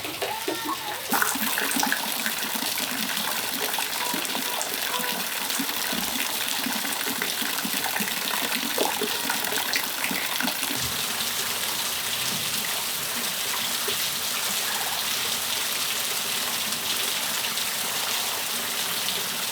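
Steady rain falling and splashing in a patio, a continuous even hiss that gets louder and brighter about a second in. A few short chirping calls sound in the first second or so.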